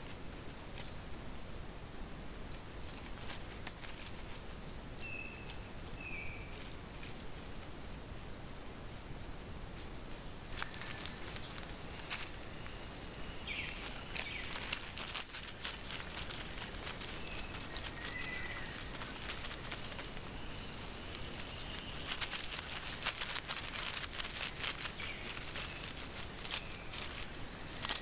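Steady high-pitched drone of rainforest insects, with a few short chirps. Toward the end, a Central American agouti's feet crunch and rustle through dry leaf litter in a quick run of clicks.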